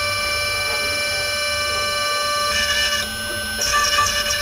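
A desktop CNC mill's high-speed spindle whines steadily while a tiny end mill cuts an aluminum mold block. About three and a half seconds in, the sound changes to a rougher, crackling cut as a fine conical engraving tool works the aluminum.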